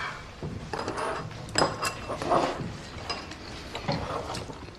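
Dishes and eating utensils clinking and knocking during a meal: a scatter of short clicks and taps, some with a brief ringing tone.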